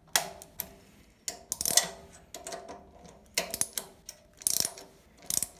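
Ratcheting torque wrench clicking in short bursts with each back-swing as M10 cap-head bolts are torqued to 35 Nm into the aluminium steering rack casting.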